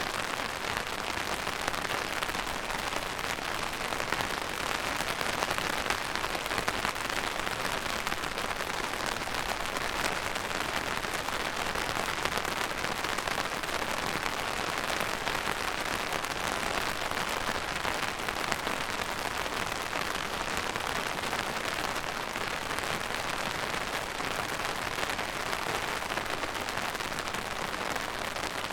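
Steady rain falling on a surface, an even dense patter with no breaks or changes.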